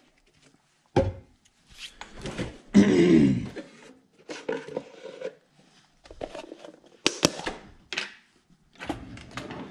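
Scattered kitchen handling sounds as a refrigerator is opened and a tub of butter is taken out: a knock about a second in, a short pitched sound around three seconds in, then rustles and clicks, with a sharp click a little after seven seconds.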